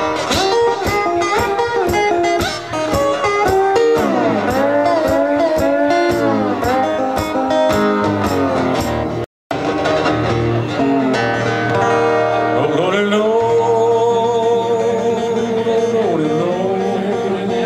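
Acoustic slide guitar playing blues: a quick strummed rhythm with gliding slide notes. It cuts out abruptly about halfway through, then comes back with slower, long-held slide notes that bend into pitch.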